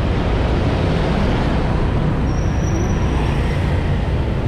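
Steady traffic noise heard from a moving motorcycle: its own engine and road noise mixed with the scooters, cars and trucks around it.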